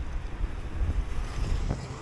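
Wind buffeting the microphone of a moving bicycle, with a steady hiss of tyres on a wet, slushy salted road and a short knock near the end.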